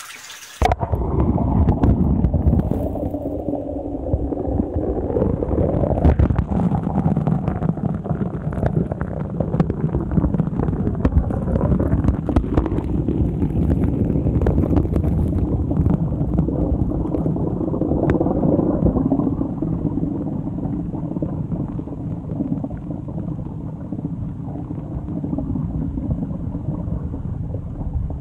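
A camera goes under the surface of a concrete fish pond about half a second in. From then on the sound is a muffled underwater rumble and gurgle, with a few faint clicks.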